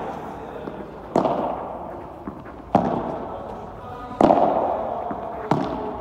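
Padel rally: four sharp knocks of the ball off rackets and court, about one every second and a half, each echoing in the covered hall.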